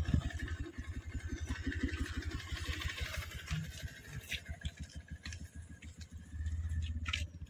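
A small vehicle engine idling with a steady, rapid low putter. It fades through the middle and swells again near the end, with a few light clicks on top.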